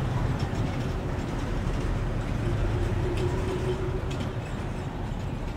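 Steady low rumbling noise with no speech, and a faint hum partway through.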